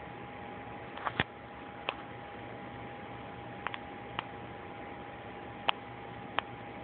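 Scattered sharp clicks, about eight over several seconds, some in quick pairs, over a steady hiss with a faint constant high tone.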